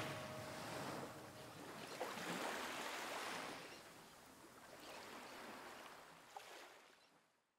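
Faint ocean waves washing in, swelling and ebbing about every two and a half seconds and fading out to silence near the end.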